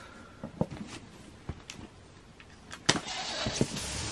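A cardboard shoebox being handled: a few light knocks and taps, a sharp click just before three seconds in, then about a second of rustling and scraping as the box is moved.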